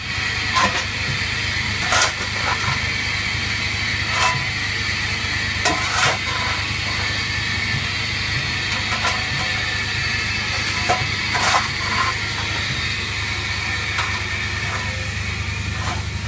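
Steady hiss of steam on the footplate of LNER B12 steam locomotive No. 8572, over a low, even hum, with scattered sharp clicks and knocks of metal in the cab.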